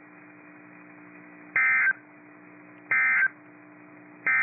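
Emergency Alert System SAME data tones: three short, loud bursts of warbling high-pitched digital tone, a little over a second apart, sending the end-of-message code after a weather-radio warning. A faint steady hum runs underneath.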